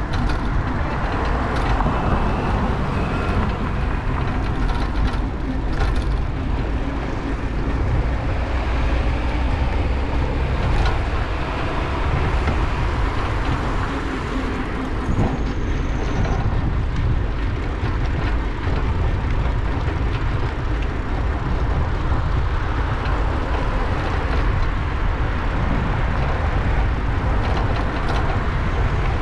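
Steady rumble of riding a rusty bicycle with the camera on board: wind on the microphone and tyres rolling on the cycle path, with a few sharp rattles and clicks and road traffic alongside.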